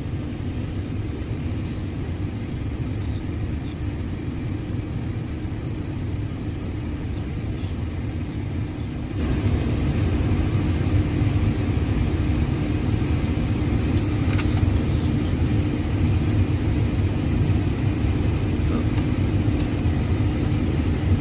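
Steady low rumble and hiss of a powered-up airliner cockpit, with a steady hum, growing louder about nine seconds in. A few faint clicks from MCDU keys being pressed.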